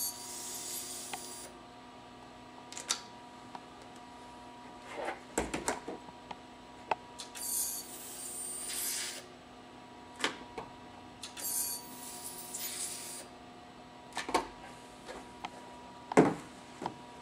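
SharperTek handheld ultrasonic plastic welder firing three short weld cycles on corrugated plastic. Each one is a high-pitched hiss lasting a second or two: one at the very start, one about seven seconds in and one about eleven seconds in. Sharp clicks and knocks come in between.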